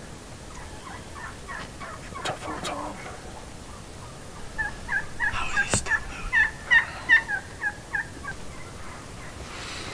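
Wild turkey calling: a few faint notes, then about halfway in a loud run of about a dozen yelping notes, roughly three a second, for about three and a half seconds. A single sharp click in the middle of the run.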